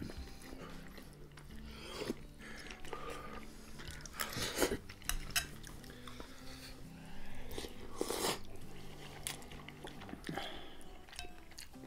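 People slurping and chewing instant noodles in broth, with a few loud slurps, the strongest about four and eight seconds in. Quiet background music runs underneath.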